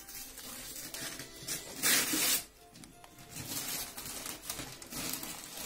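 Wrapping paper rustling and tearing as a gift is unwrapped, loudest in a short burst about two seconds in, with music playing in the background.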